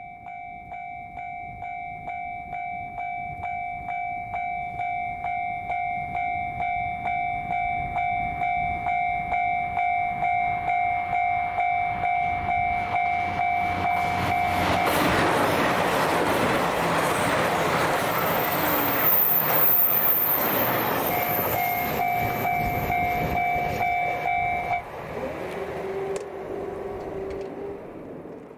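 Level-crossing warning bell ringing, a two-tone electronic clang about twice a second. From about halfway through, a JR Hokkaido DF200 diesel-electric locomotive hauling a freight train passes over the crossing, and its engine and wheels drown the bell. The bell cuts off suddenly near the end as the train clears.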